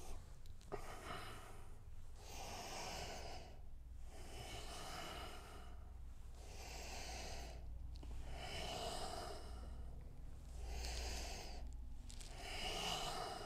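A man breathing steadily in and out through the nose and mouth, each breath audible, about one every two seconds, while holding deep-squat to forward-fold hamstring stretches.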